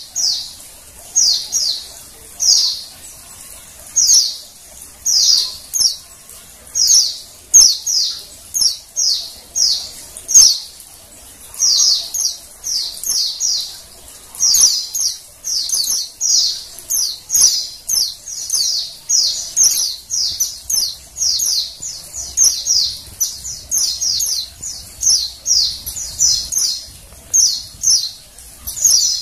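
Female white-eye (pleci) calling: short, high, downslurred chirps in quick clusters of two to four, repeated every second or so and coming more densely in the second half.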